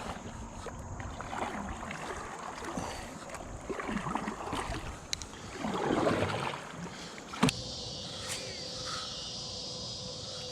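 Kayak paddling on a lake: soft swishes of paddle strokes in the water every couple of seconds, with a sharp knock about three quarters of the way through.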